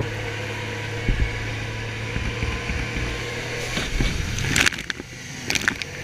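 Outboard motor of a rigid inflatable boat running at speed, with a steady hum under the rush of water and spray off the hull. Two short loud splashes come near the end, about a second apart.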